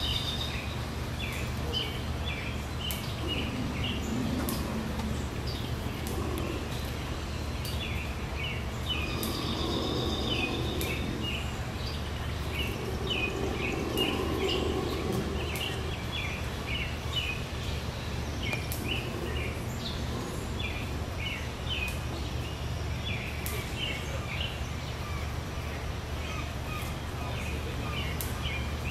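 Outdoor ambience of small birds chirping again and again over a steady low hum.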